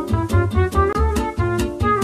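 Background music: an instrumental track with a steady beat and a bass line.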